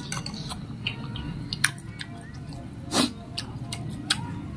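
Close-miked chewing of a mouthful of bakso meatball: wet mouth smacks and small clicks, with one louder wet burst about three seconds in.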